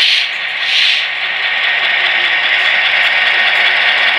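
Steady, tinny diesel engine running sound from the onboard sound decoder speaker of an HO-scale EMD F7A model locomotive. Two brief hissy swells come right at the start and just under a second in.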